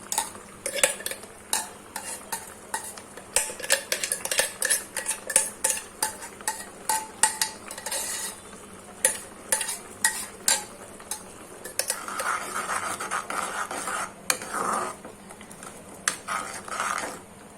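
A metal spoon stirring and scraping in a bowl, clinking sharply and irregularly against its side, as red chili paste is mixed into raw chicken for a marinade. The clinks come thick and fast for the first half, giving way to a rougher scraping sound later on.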